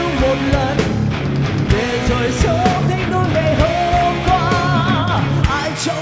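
Vietnamese rock song played by a full band: steady drum beat, bass and guitars, with a wavering lead melody on top.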